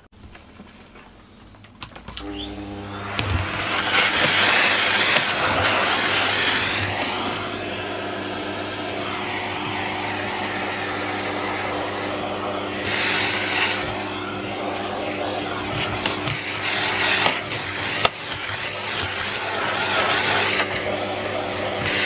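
Vacuum cleaner switched on about two seconds in, its motor whine rising as it spins up, then running steadily, swelling louder now and then as the nozzle is worked over the floor.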